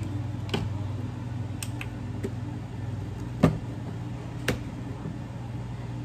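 A few short, sharp knocks and clicks, the loudest about three and a half seconds in, over a steady low hum.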